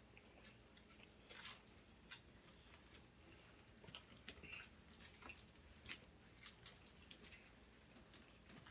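Faint chewing of a steak and cheese sub and crisp french fries: scattered soft clicks and small crunches, the clearest about one and a half seconds in.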